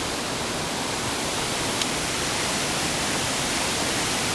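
Steady rushing water, a continuous even hiss like a fast creek or waterfall.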